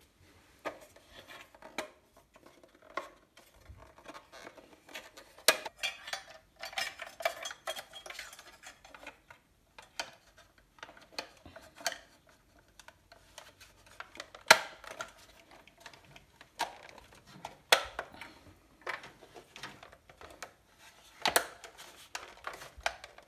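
Irregular clicks, knocks and rattles of a boiler's plastic PCB control unit and its metal mounting bracket being handled and moved, with a few sharper knocks scattered through.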